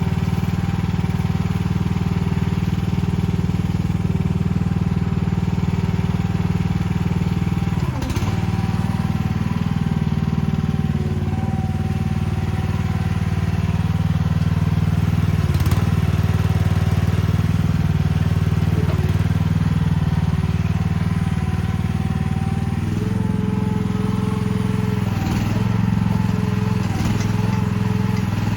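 Chinese mini excavator's engine running steadily, with a higher whine that steps in pitch several times as the machine works. A few sharp knocks, about a third and about halfway through.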